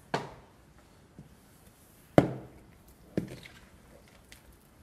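Three dull knocks of a large mixing bowl bumping on the countertop as it is pulled close and the marinated fish is mixed in it by hand; the middle knock, about two seconds in, is the loudest.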